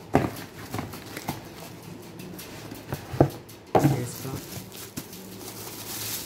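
Cardboard shoe boxes being handled and a sneaker's clear plastic wrapping crinkling, with a few sharp knocks of box and lid: one right at the start, one about three seconds in, and one just before four seconds.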